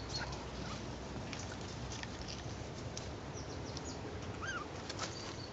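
Young kittens moving about in dry leaves and twigs, with faint scattered rustles and clicks. One short kitten mew, rising and falling, comes about four and a half seconds in.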